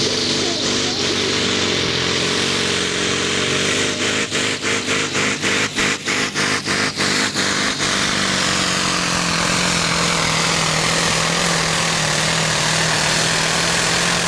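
Scania 142 pulling truck's V8 diesel running at full throttle under load as it drags a weighted sled. Between about four and eight seconds in, the sound pulses rapidly, about three times a second. It then runs steadily, with a high whistle slowly falling in pitch.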